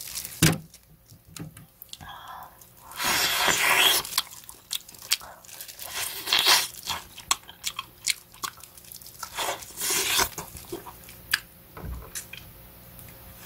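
Close-up eating sounds: a person chewing and gnawing meat off boiled back bones, with wet sucking noises and small clicks, and louder sucking bursts about three, six and ten seconds in.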